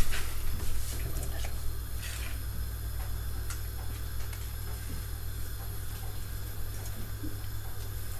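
A hot roasting tray of vegetables sizzling as they are turned with a utensil, with a few light scrapes against the tray, over a steady low hum.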